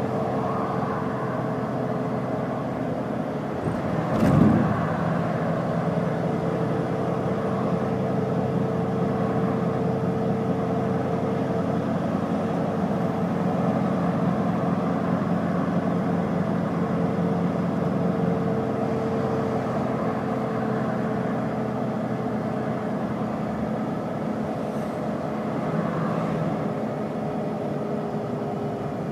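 Iveco Crossway LE bus heard from inside the cabin, its Iveco Cursor 9 six-cylinder diesel running steadily with a held whining tone. One loud thump comes about four seconds in.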